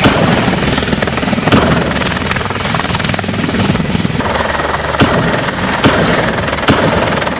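Helicopter sound: rotor blades chopping fast and evenly, loud and steady, cutting off suddenly at the end.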